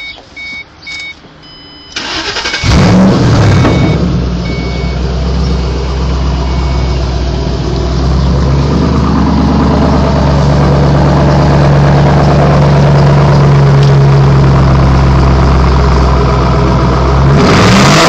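2005 Ford Mustang GT's 4.6-litre V8, fitted with a Flowmaster Outlaw Series exhaust and a Pypes off-road H-pipe, starting up. A warning chime beeps for the first couple of seconds, the starter cranks briefly, and then the engine catches with a loud flare and settles into a loud, steady idle. It is revved once near the end.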